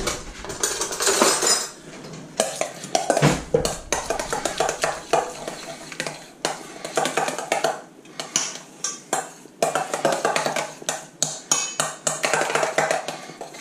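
Metal cutlery stirring and scraping a thick sauce of mayonnaise, mustard and ketchup in a stainless steel mixing bowl, in quick, irregular clinks against the metal. At the start, cutlery rattles in an open drawer.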